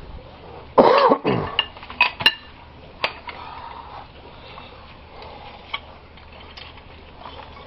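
A loud cough about a second in, then a few sharp metal clinks of plumbing tools and pipe fittings being handled.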